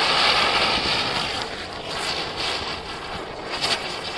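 Diwali ground spinner (chakri) hissing steadily as it spins and sprays sparks, with a few sharp crackling pops in the second half.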